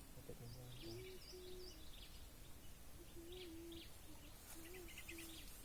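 Faint birdsong: scattered high chirps mixed with short, low, wavering cooing calls, over a low background hum of the outdoors.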